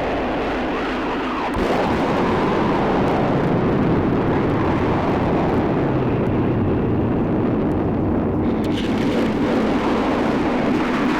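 Dense rumbling, storm-like noise wash from an experimental guitar album track, with faint sweeping tones drifting through it. It steps up louder about a second and a half in and then holds steady.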